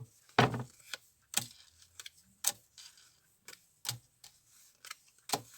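Tarot cards being handled and drawn from the deck: a series of light, irregularly spaced clicks and snaps of card on card.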